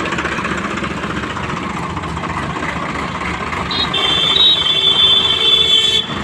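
Diesel tractor engine running steadily with a low throb. About four seconds in, a loud high steady tone joins it for about two seconds and cuts off suddenly.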